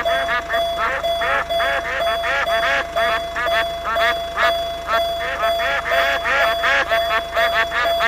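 Duck quacks, fast and overlapping, several a second, over a steady electronic tone that pulses about twice a second.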